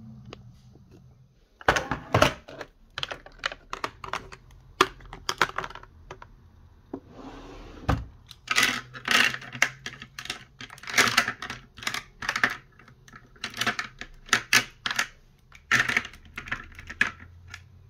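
Plastic makeup compacts and cases being handled and set down: a quick, irregular run of sharp clicks and light clatter, with a brief rubbing sound about seven seconds in.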